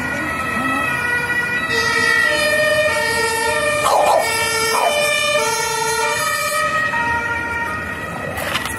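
Emergency vehicle's two-tone siren, alternating between a low and a high note, each held a little over half a second. It grows louder toward the middle and fades near the end.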